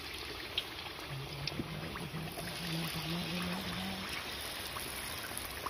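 Batter-coated breadfruit pieces frying in hot oil in a wok: a steady sizzling hiss. A faint low hum, stepping up in pitch, sounds in the background from about one to four seconds in.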